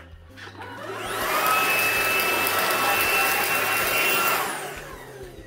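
Xiaomi cordless stick vacuum running with its floor head pushed over a shag rug, in a final test of the rolling brush after a broken wire inside the brush was replaced. It comes up about a second in, rising in pitch, runs steadily with a high whine over a hiss, and fades away near the end.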